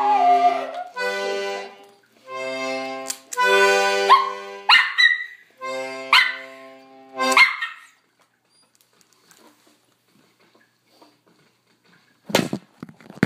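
An accordion plays held chords in short phrases while a small dog howls along, its voice wavering and bending above the notes. The playing and howling stop about eight seconds in, and a couple of short bumps follow near the end.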